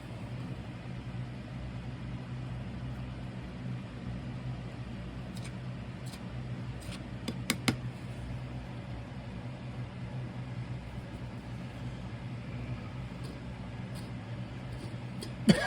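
Steady low mechanical hum, with a few light clicks and taps about halfway through, and a short cough-like sound right at the end.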